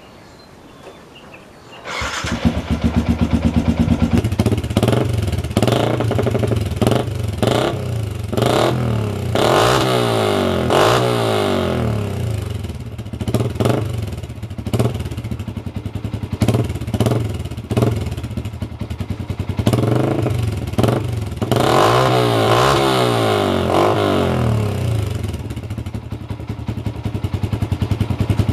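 Yamaha Sniper 150's single-cylinder four-stroke engine, breathing through a replica Akrapovic exhaust, starts about two seconds in and idles. It is then revved in repeated throttle blips that rise and fall in pitch, a couple of them longer, without being taken to full revs. Near the end it settles back to idle.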